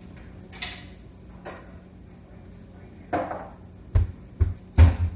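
Handling noise as a phone camera is carried to a refrigerator and set down inside it: a few brief scrapes and rustles, then three heavy close-up thumps near the end, the last the loudest.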